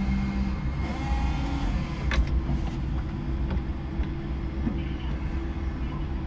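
A 5-ton electric forklift running, heard from its cab: a steady low motor hum, with a few light clicks near the middle.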